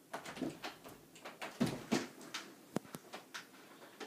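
Irregular soft thumps, clicks and rustles of someone walking about a small room, with handling noise from a handheld camera.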